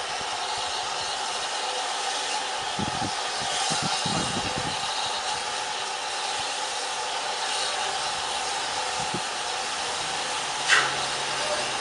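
Steady hiss of steam escaping from an LSWR M7 0-4-4 tank locomotive standing on a turntable. A single sharp metallic knock comes near the end.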